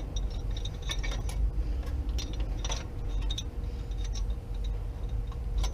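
Scattered light clicks and metallic taps as hands and tools handle parts at the front of a truck's engine bay, irregular rather than rhythmic, over a low steady rumble.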